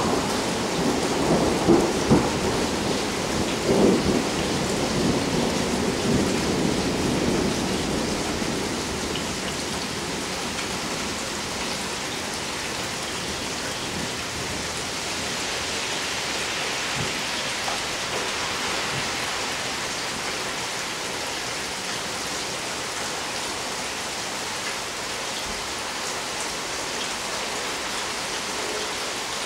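Thunder rumbling over steady rain, swelling a couple of times and dying away within the first several seconds. After that, only the steady rain falling.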